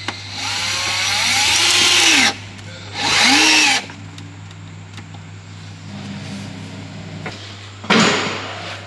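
Milwaukee cordless right-angle drill driving screws into a plastic side skirt extension: a run of about two seconds that grows louder, then a shorter second run, the motor's pitch wavering. A short sharp noise follows near the end.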